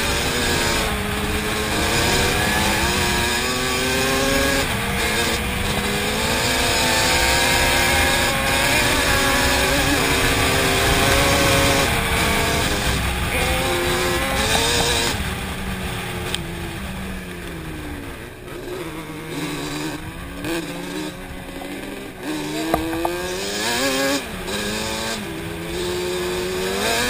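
Yamaha Banshee 350's twin-cylinder two-stroke engine revving up and down as the quad is ridden along a gravel trail, under steady wind and tyre noise. About halfway through the revs drop and it runs at low throttle for several seconds, then picks up again near the end.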